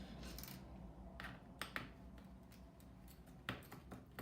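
A few faint, light clicks spread irregularly, one a little louder near the end: tiny MacBook Pro bottom-case screws and a small Phillips precision screwdriver being handled and set down on a desk.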